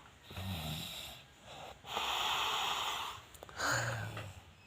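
A person yawning: a short low voiced sound, then a long breathy rush of air lasting about a second, and another brief voiced sound with breath near the end.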